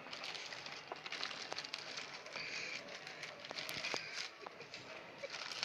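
Plastic courier mailer bag being torn open and crinkled by hand: an irregular crackling with many small sharp clicks.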